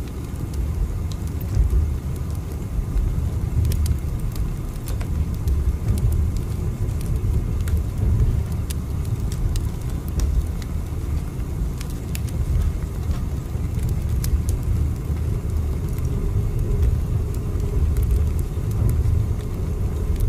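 Train running: a steady low rumble with faint, scattered clicks over it.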